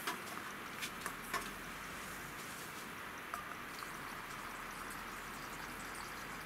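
A few light clicks and knocks as a stainless-steel strainer bowl of uncooked rice is handled and lifted, over a steady faint hiss.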